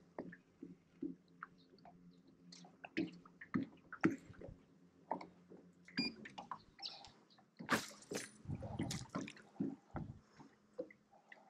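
Light irregular knocks, clicks and small splashes of water around a small aluminium boat, under a faint steady hum that stops about halfway through.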